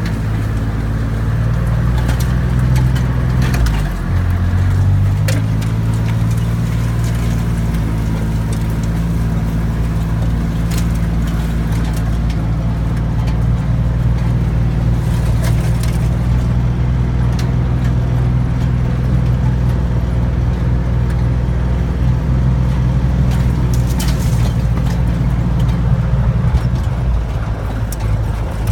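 Motor vehicle engine running steadily while driving over rough ground, with rattling and knocks from the vehicle. The engine note dips and shifts briefly about four seconds in.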